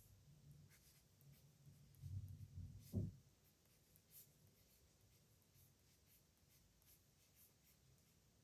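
Pen writing on paper: faint, short scratchy strokes, with a soft low bump of handling about three seconds in.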